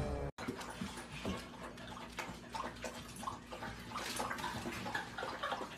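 A puppy splashing and lapping water in a toilet bowl, in small irregular splashes.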